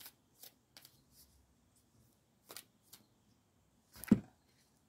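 Tarot cards being handled and drawn from the deck: a few soft flicks and rustles, then a louder knock about four seconds in.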